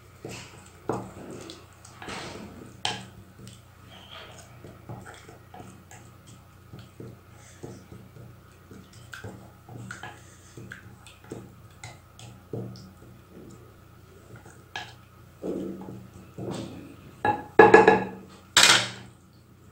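A wooden spatula stirring a thick spice marinade in a glass bowl: irregular soft scrapes and knocks against the glass. A few louder knocks come near the end.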